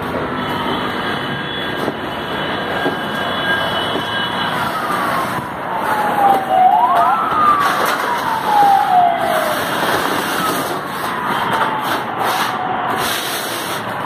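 A siren wailing in long, slow sweeps: a held tone that falls away, jumps sharply back up about halfway through, and falls again, over steady background noise.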